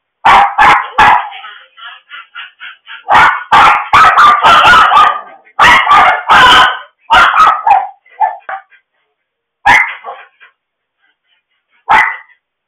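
Dogs barking and yipping, loud and harsh through a home security camera's microphone. A run of quick short yips comes about a second in, a dense flurry of barks follows between about three and seven seconds, and single barks come near the end.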